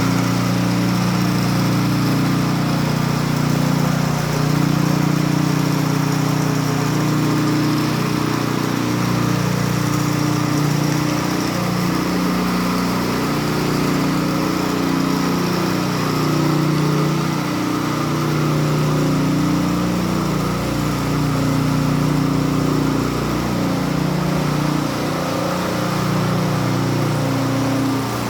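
Small petrol engine of a concrete power trowel running steadily at a constant speed.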